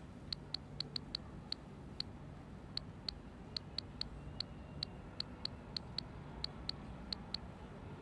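Typing on a smartphone's on-screen keyboard: about twenty short, sharp key-press clicks at an uneven typing pace.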